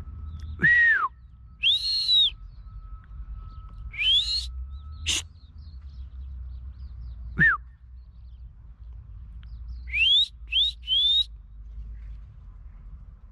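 A person whistling to call a dog: a series of short whistles, some falling and some rising in pitch, ending with three quick rising whistles.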